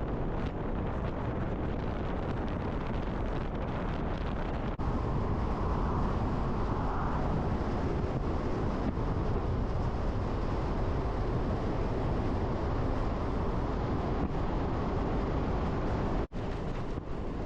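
Pickup truck driving: a steady rumble of road and wind noise with no distinct events. It cuts out briefly twice, about five seconds in and near the end.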